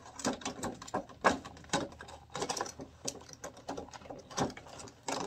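Plastic packaging and a plastic vanity mirror being handled and fitted back into the box: irregular light clicks and crinkly rustles, with one sharper click about a second in.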